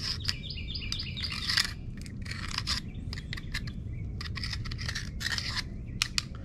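Knife blade scraping salt-water corrosion off a small metal part from an outboard's anode fitting, in short irregular strokes. Early on a bird sings a quick run of falling chirps in the background.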